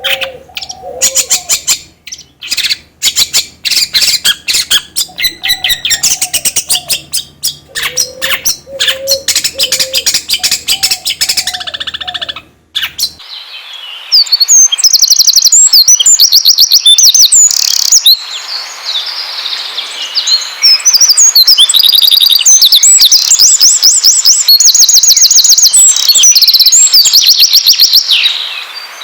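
Songbirds singing: rapid chirps over lower curving notes, then an abrupt switch about 13 seconds in to a louder recording of fast, high repeated trills. Lure song played to get caged songbirds to start singing.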